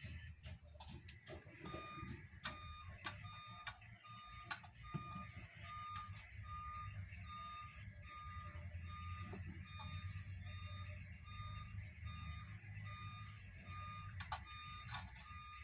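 Electronic beeping: short, evenly spaced beeps at one steady pitch, about two to three a second, starting about two seconds in, over a low steady hum, with a few sharp clicks.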